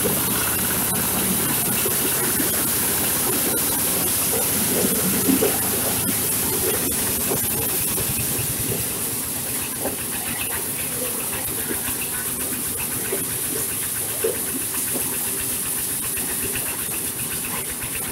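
Engine-driven corn husker-sheller running steadily. A constant hiss and mechanical din, with a fine crackle of many small clicks as the kernels are threshed out and pour from the chute.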